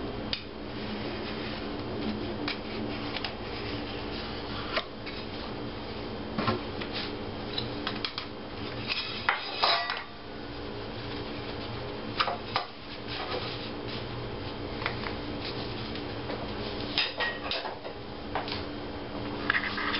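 A metal pizza pan and a kitchen knife clink and knock against a wooden butcher-block board as a dough round is trimmed and the tools are moved aside and set down. These scattered handling clicks come over a steady low hum.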